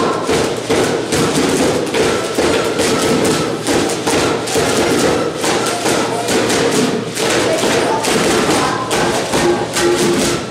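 A group of children playing homemade recycled instruments together: plastic-container drums with wax-paper heads tapped in a fast, uneven patter, bean-filled paper-towel-tube rain shakers, and popsicle-stick rubber-band harmonicas giving a steady buzzing drone under the taps.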